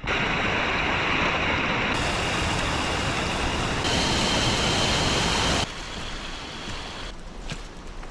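Loud, steady rush of water that changes abruptly twice, then drops suddenly to a quieter wash about five and a half seconds in.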